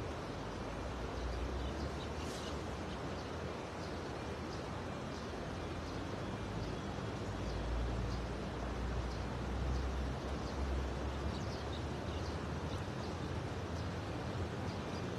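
Steady outdoor background noise: a low rumble that swells in the middle, with faint scattered high chirps like small birds.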